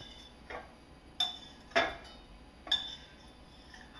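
Metal spoon clinking against a stainless steel saucepan while scooping up simple syrup: about four light clinks, the loudest a little under halfway through.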